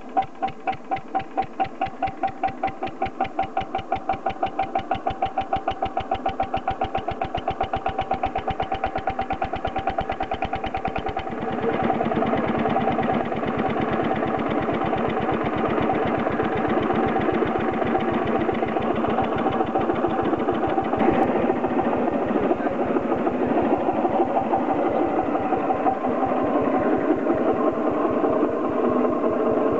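Deutz single-cylinder hopper-cooled stationary engine just started, its regular exhaust beats speeding up as it comes up to speed. About eleven seconds in the sound changes abruptly to steady, louder running with faster, closely spaced beats.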